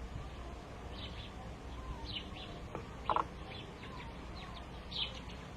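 Small birds chirping, with short high calls scattered every second or so over a steady low hum, and one brief louder sound about three seconds in.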